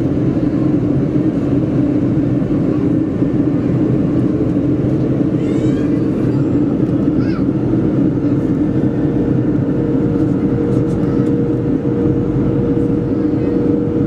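Boeing 737-400 cabin noise during descent: the steady drone of the CFM56 engines and rushing air, heavy in the low range. A steady hum joins it about eight seconds in.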